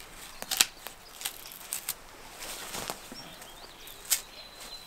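Knife scraping and cutting bark from a dead log in a handful of sharp scrapes and cracks, about a second apart, to get at the inner bark for a tinder bundle. Faint bird chirps behind.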